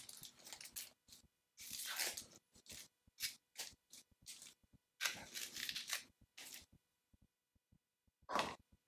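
Dry papery skin of a red onion crackling and tearing as it is peeled off with a knife, in short, faint scratchy bursts with quiet gaps between them.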